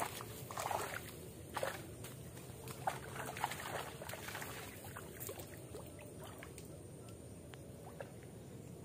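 Steady outdoor background noise by a fishpond, with a cluster of short rustles and clicks in the first few seconds that then settle.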